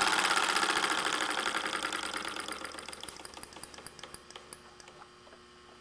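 Hand-built vertical solenoid engine running down: its rapid, even clicking of piston and microswitch slows and fades over several seconds until it has almost stopped near the end.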